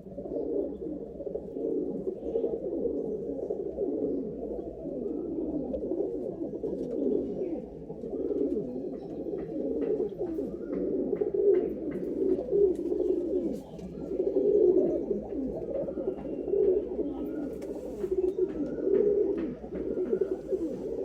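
Domestic pigeons cooing: many low coos overlapping into a continuous murmur, with scattered sharp clicks.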